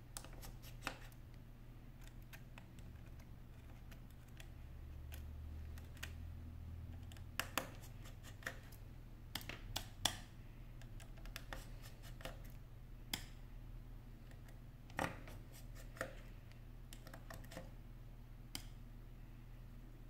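Scattered small clicks and ticks of precision screwdriver work on an iPhone 5's tiny screws and metal parts, with screws being set down on a magnetic screw mat. A low steady hum runs underneath.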